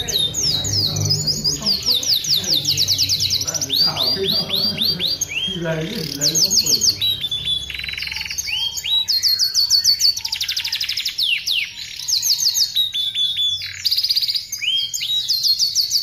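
Domestic canary singing a long, varied song: phrase after phrase of fast rolling trills, each phrase a rapid run of the same note before switching to another, with only brief breaks.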